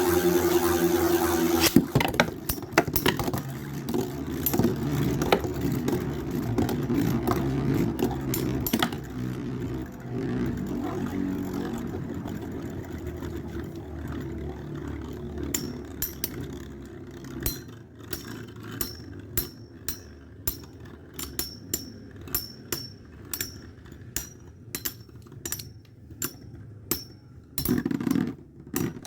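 Two Beyblade spinning tops, Storm Pegasis 105RF and Dark Cancer CH120SF, spinning and scraping against each other in a plastic stadium, with frequent sharp clacks as they collide. About halfway through the steady whirring thins out and the clacks come singly, one or two a second.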